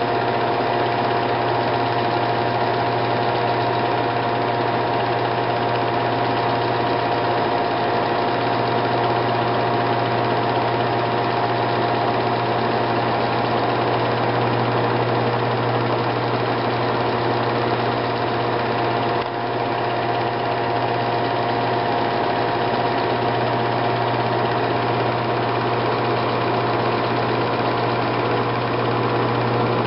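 Steady mechanical whir and hum of a film projector running, unchanging throughout.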